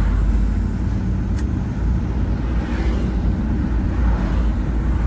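Old truck's diesel engine running steadily, its exhaust sound deep and low.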